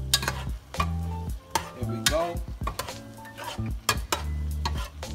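A metal spoon stirring a thick, wet leafy soup in a pot, with repeated clicks and knocks of the spoon against the pot. Background music with a deep bass line plays underneath.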